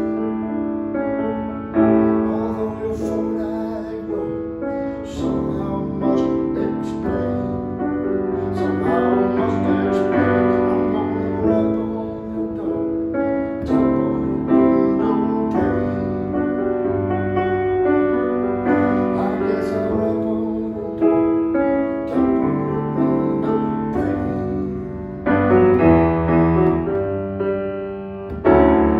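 Steinway & Sons Model B semi-concert grand piano played solo, with full chords under a melody and notes left to ring. There are sudden louder chords about two seconds in and twice near the end.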